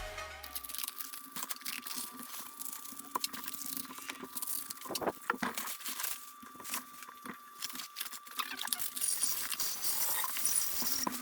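Faint, irregular clicks, taps and rustling from parts and tools being handled during engine assembly, over a faint steady hum.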